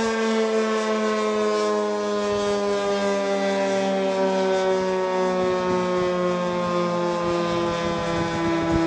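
Federal Signal 2T22A dual-tone tornado siren sounding its steady Alert tone as it winds down, its two-note chord slowly and evenly falling in pitch while the loudness stays level.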